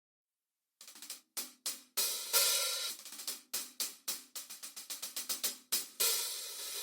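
Turco Neuwied series B20 cymbals being played, starting about a second in: quick, sharp strokes that die away fast, a longer cymbal wash about two seconds in, a run of short choked strokes, then a cymbal left ringing near the end.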